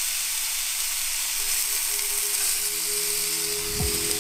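Slices of raw pork belly sizzling steadily in oil in a frying pan over low heat, the first searing before braising.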